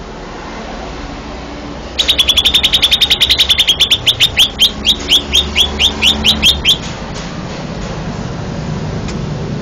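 Cucak ijo (green leafbird) singing a run of sharp, high, downward-sweeping notes, very rapid at first and slowing to about four a second before it stops. The run begins about two seconds in and lasts nearly five seconds, over a low steady background hum.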